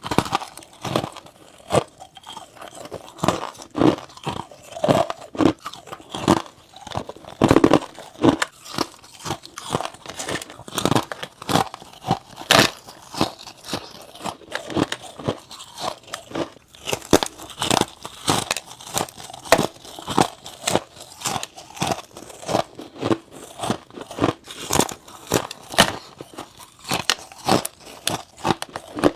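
Close-miked crunching of frost being bitten and chewed: a quick, steady run of crisp crunches, several a second.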